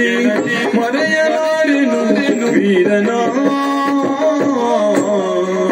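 Yakshagana sung verse from the bhagavata, a voice holding and bending long notes over the ensemble, with maddale drum strokes underneath.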